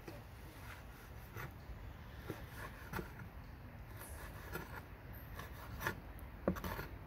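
Knife slicing grilled meat on a wooden cutting board: irregular short scrapes and taps of the blade against the wood, the sharpest near the end.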